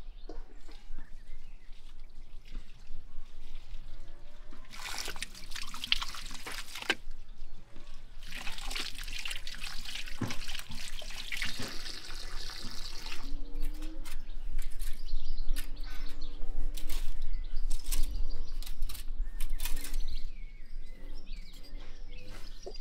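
Water running and splashing in two spells as fresh green onions are rinsed, then a louder run of rustles and small knocks, with birds chirping.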